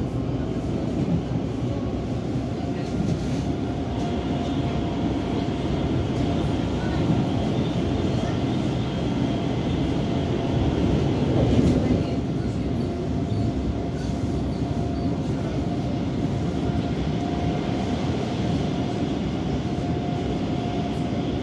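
Helsinki metro train running, heard from inside the carriage: a steady rumble of wheels on rails with a faint steady whine, swelling slightly about halfway through.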